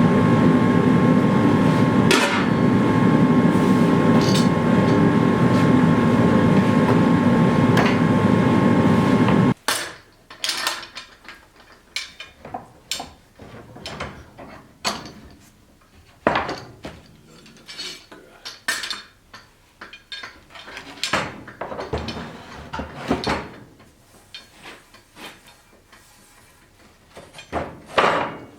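Forge running with a loud steady rush and a hum, which cuts off abruptly about ten seconds in. Then come scattered light metallic clinks and knocks from steel tools and stock being handled.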